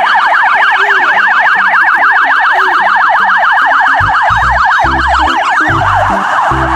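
Electronic police siren from a toy police car: a fast warble sweeping up and down, turning into a rougher, hissing wail near the end. A thudding low beat comes in about two-thirds of the way through.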